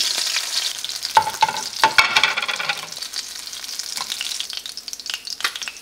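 Breaded bluegill fillets sizzling in oil that is too hot in a stainless steel frying pan, browning them to the point of burning. A spatula clinks and scrapes against the pan several times about a second or two in as pieces are lifted out, and the sizzle dies down over the rest.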